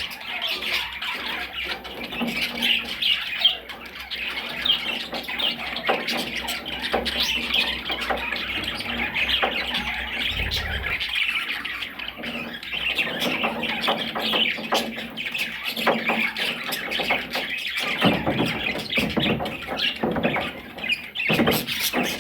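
Parrots chattering and squawking without pause, a dense stream of high calls with scattered clicks.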